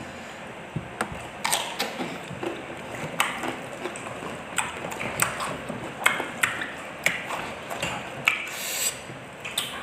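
Close-up eating sounds: chewing and lip-smacking, with many sharp irregular clicks several times a second as people eat rice, fried tempeh and raw vegetables with their hands. A short breathy hiss comes near the end, after the very spicy sambal.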